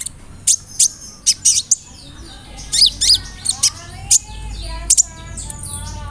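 Kolibri ninja (konin) sunbird singing: sharp, very high chips in quick bursts, joined about halfway by a run of lower whistled notes that slide downward.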